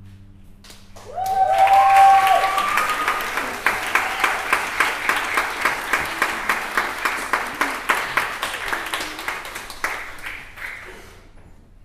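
Audience applause breaking out about a second in after a string orchestra piece ends, with a few short cheers near the start. One steady clapper is prominent at about three claps a second, and the applause dies away near the end.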